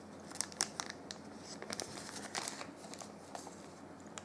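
A small plastic parts packet rustling and crinkling as it is handled, with scattered light clicks.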